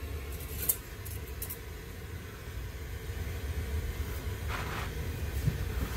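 Handheld blowtorch flame burning with a steady low rush, while metal tools click a few times and give a short scrape about four and a half seconds in as a wrench goes onto a heated rear hub bolt.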